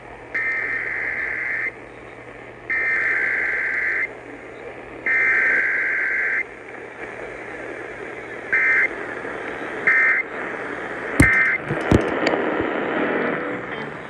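Emergency Alert System required weekly test played through a small radio's speaker. Three screechy digital SAME header data bursts, each about a second long with short gaps, are followed a few seconds later by three much shorter end-of-message bursts, with no voice message between them. Two sharp knocks come near the end.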